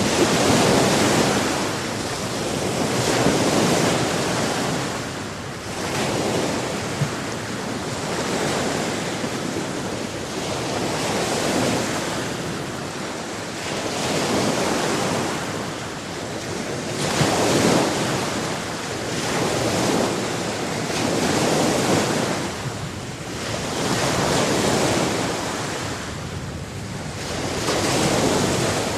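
Sea waves breaking on a shore, the surf swelling and washing back every two to three seconds.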